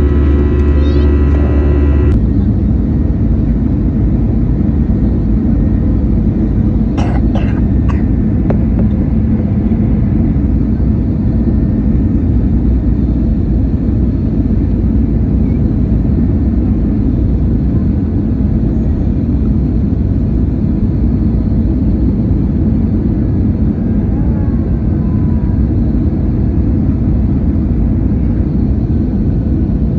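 Steady loud roar of an airliner's engines and airflow heard inside the passenger cabin. A steady whine over the rumble stops about two seconds in, and a few brief sharp sounds come around eight seconds in.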